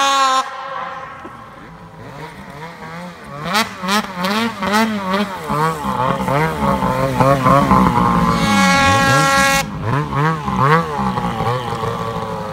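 Two-stroke mountain snowmobile engine revving up and down in quick blips of throttle as the sled works through deep snow, held high for about a second, then dropping away sharply about ten seconds in, leaving a quieter engine.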